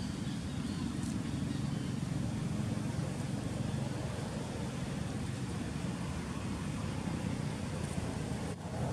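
Steady low rumble of outdoor background noise with no distinct event, briefly dipping near the end.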